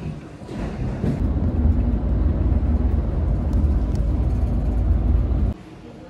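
Water running from a washroom tap into the basin, a heavy low rush that stops abruptly about five and a half seconds in, as an automatic tap shuts off.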